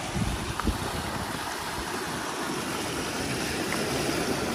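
Floodwater in a swollen creek rushing steadily, with a couple of dull thuds in the first second as gumboots wade through the shallow crossing.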